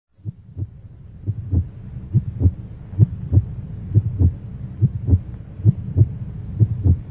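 Heartbeat sound effect: paired low thumps in a steady lub-dub rhythm, a little under one beat a second, over a low hum. It fades in and grows louder over the first couple of seconds.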